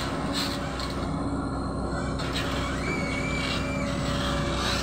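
Caterpillar 312 excavator's diesel engine running steadily under load as the bucket digs into and lifts a load of soil, with a brief thin high whine about three seconds in.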